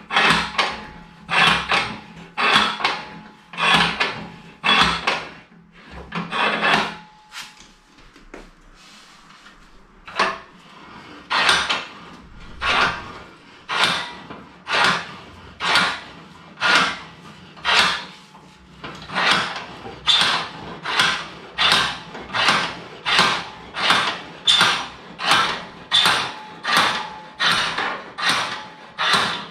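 Rhythmic rasping strokes, about three every two seconds, as cord is drawn against the cotton warp threads and wooden frame of an upright rug loom while it is being set up. The strokes stop for about three seconds after about seven seconds, then run on evenly.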